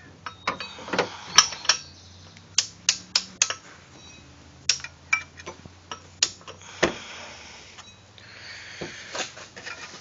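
Metal clicks and clinks of a 24 mm 12-point socket, 3-inch extension and half-inch drive torque wrench being fitted together onto a crank bolt, about a dozen sharp knocks. They are followed near the end by a softer rustling scrape.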